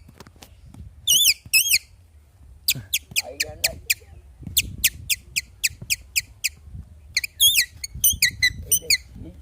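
A person imitating bird calls: runs of short, high-pitched chirping notes, about three a second, with a few wavering whistle-like calls near the start and near the end.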